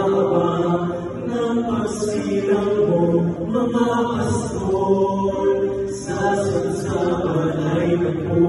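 Male vocal quartet singing in harmony, holding long chords that change every second or so.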